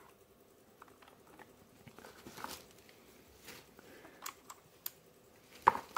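Faint, scattered small clicks and rustles of an RK61 mechanical keyboard and its cable being handled, with one sharper knock near the end.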